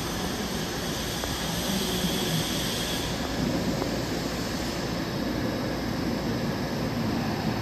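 Steady hum and whir of a Saitama Railway subway train standing at an underground platform behind closed platform screen doors. The higher hiss eases about three seconds in.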